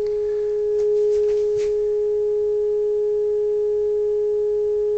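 Steady single tone from the Uniden 2020 transceiver's speaker: the signal generator's test signal being received while the RF preamp's output coil is peaked for alignment. The tone grows a little louder about a second in as the coil comes onto peak, with a few faint clicks from the alignment tool.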